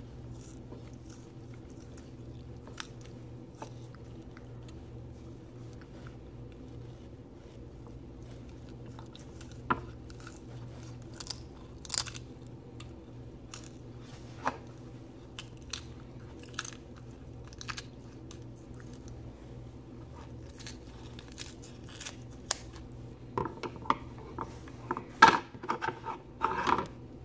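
Kitchen shears crunching through a Cornish hen's backbone, cutting it out to spatchcock the bird: scattered sharp crunches, thickest and loudest near the end, over a steady low hum.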